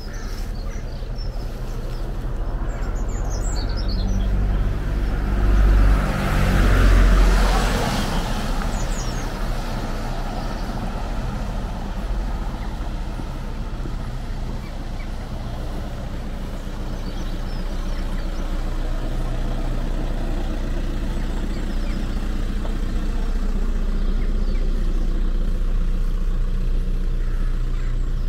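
Motor vehicle engine running close by, a steady low hum that swells loudest about six to eight seconds in as it passes, then settles back to a steady run. Birds chirp briefly a few times.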